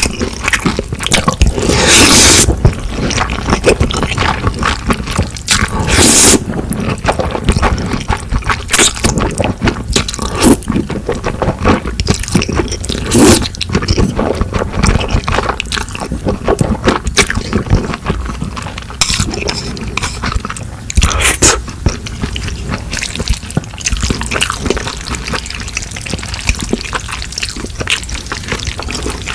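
Close-miked wet, sticky sounds of sauced noodles being mixed or eaten, with utensils scraping and clicking and several louder wet bursts.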